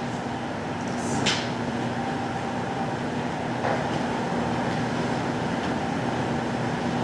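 Steady background room noise with a low, even hum, and two brief soft rustles, one about a second in and one near the middle.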